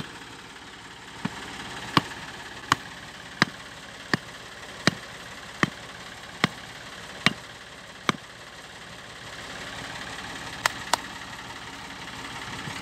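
A hand-held stone striking a wooden peg to drive it into the ground: about a dozen sharp knocks a little under a second apart, a pause, then two quick knocks near the end. Under it a small stationary diesel engine runs steadily.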